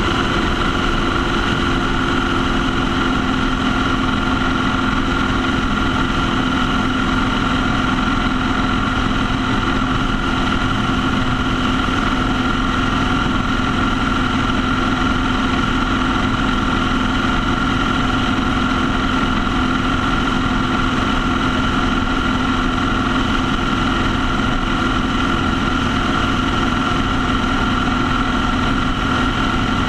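Motorcycle cruising at a steady speed: the engine holds a constant drone under steady wind and road noise, with no change in revs.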